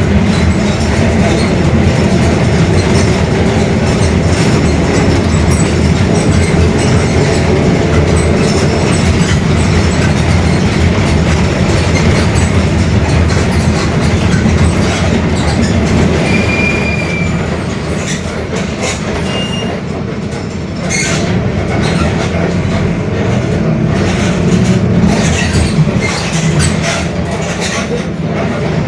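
Mercedes-Benz OF-1721 Bluetec 5 city bus under way: its engine and drivetrain run with body rattles, and the differential growls. The noise eases off about two-thirds through and then builds again, with a brief high squeal about halfway.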